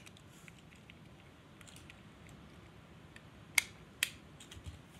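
Quiet room tone with scattered small sharp clicks, the two loudest about three and a half and four seconds in.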